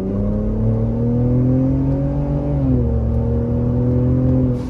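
Ford Raptor's twin-turbo EcoBoost V6 accelerating, its pitch climbing steadily, dropping at an upshift a little under three seconds in, then rising again before the throttle eases off near the end.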